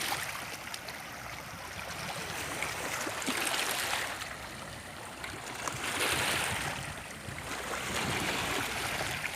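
Small waves washing against the shore, a steady water noise swelling and fading about every two to three seconds.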